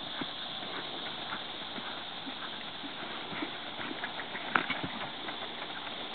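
Hoofbeats of a ridden Appendix-bred horse on arena sand: soft, uneven thuds over a steady hiss, with one sharper knock about four and a half seconds in.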